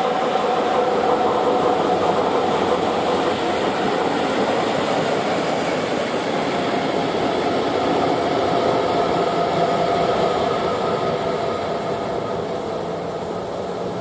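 Freight train passing at line speed, its wagons giving a steady rolling rumble that eases slightly near the end.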